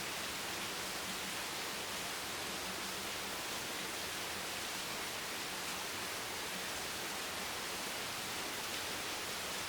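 Heavy rain falling steadily on a bench, a dense even hiss with no separate drops or knocks standing out.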